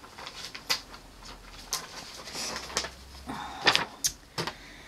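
Sticker sheets and paper being handled: soft rustling with several sharp clicks and taps.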